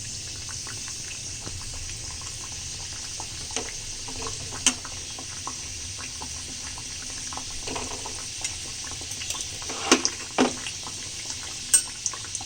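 Chicken cutlets frying in hot oil with a steady sizzle. A few sharp knocks and clicks of a utensil against the pan come through, the loudest about ten seconds in and again near the end.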